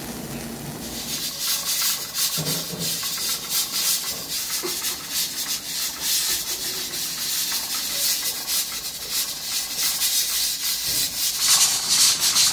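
Broth boiling in an earthenware pot over a gas burner: a dense, crackling bubbling that grows louder and fuller near the end as the boil rolls harder.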